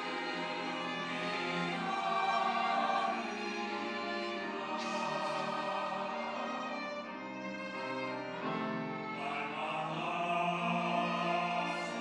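Church choir singing an anthem in sustained chords with instrumental accompaniment.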